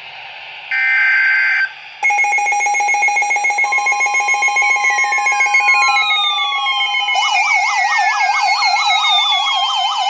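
Emergency Alert System tones from weather and broadcast radios. A short burst of warbling SAME header data tones comes first. About two seconds in, steady attention tones begin, with slow falling siren-like sweeps over them. About seven seconds in, a fast warbling siren tone joins.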